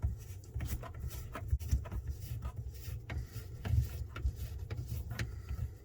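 Scattered clicks, knocks and rubbing as hands work the drain pipe connection loose from a garbage disposal under a sink.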